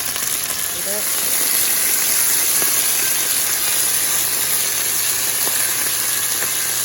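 Chicken pieces frying in oil in a hot pan, a steady sizzle.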